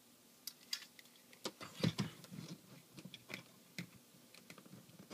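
Fingernails picking at the plastic cockpit canopy of a TFC Toys Eagle transforming jet figure, trying to pry it open: an irregular run of small plastic clicks and taps, the strongest about one and a half to two seconds in.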